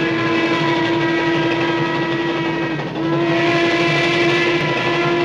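Steam locomotive whistle blowing a long, steady note that breaks off briefly about three seconds in and then sounds again, over the rumble of the running train.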